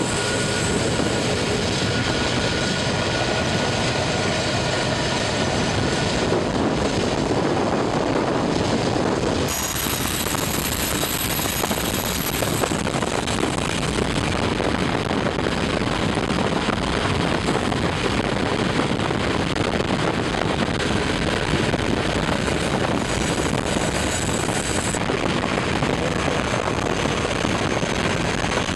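Diesel-electric freight locomotive running past at close range: a steady, loud engine rumble with the noise of the train rolling on the rails. The sound changes abruptly about ten seconds in.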